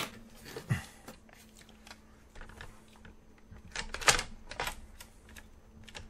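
Plastic clicks and taps as the battery cover of an iRobot Roomba 692 is handled and fitted back onto the robot's underside, with a cluster of sharper clicks about four seconds in.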